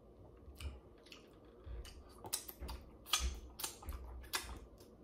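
Close-up mouth sounds of eating a seafood boil by hand: wet smacks and clicks of chewing and sucking at the fingers, irregular and sparse at first, coming thick and fast from about two seconds in.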